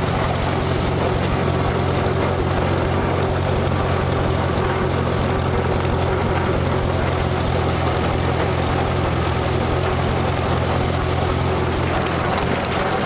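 Farmall BN tractor's four-cylinder engine running at a steady, even speed.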